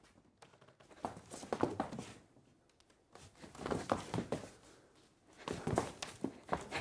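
Footsteps and scuffing on a stage floor in three short bursts of irregular knocks, with quiet gaps between them.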